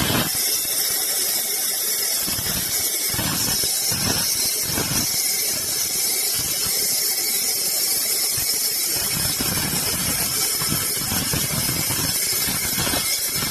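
Sawmill saw cutting through wood with a steady, high-pitched squeal, its lower sound rising and falling unevenly as the cut goes on.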